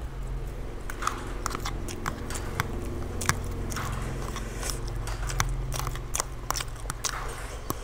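Chewing and mouth noises from eating instant ramen noodles, with a metal fork clicking and scraping against a plastic food container in many sharp ticks.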